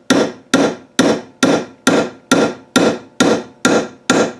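Hammer striking a valve guide driver, pressing a new valve guide bushing into the exhaust valve guide of a 5 hp Briggs & Stratton flathead engine block. Even, not-too-hard taps about twice a second, about ten in all, each with a short metallic ring.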